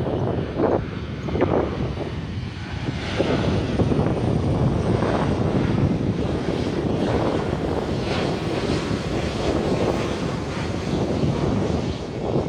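Boeing 737-800's CFM56-7B jet engines running steadily during final approach, a continuous rushing drone.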